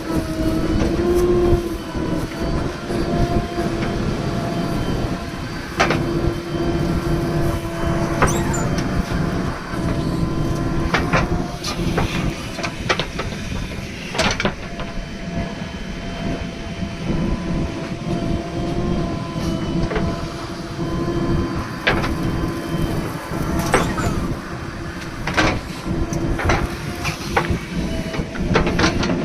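JCB 3DX backhoe loader's diesel engine running steadily under work, with a steady whine over it. Irregular sharp knocks and clanks come every second or two, from the digging and loading gear working.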